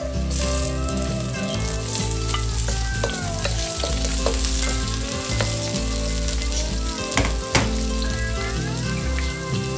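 Sliced onion and bell pepper sizzling as they hit hot oil in a stainless steel wok, stirred with a wooden spatula that scrapes around the pan. Two sharp knocks come about seven seconds in.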